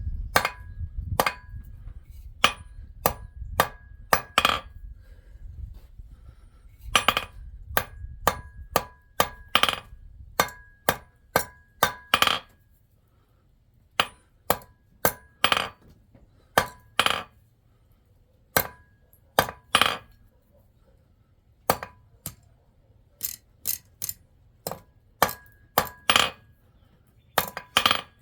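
Hand hammer striking silver on an anvil in runs of several blows with short pauses, each blow followed by a short metallic ring from the anvil. A low rumble sits under the first several seconds.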